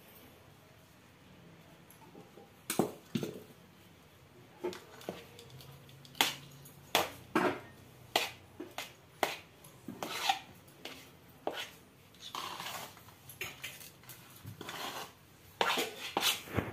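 Steel spoon clinking and scraping against a steel mixing bowl while rice flour is stirred into a soft dough mixture. Starts a few seconds in as a run of irregular clinks, with some longer scrapes.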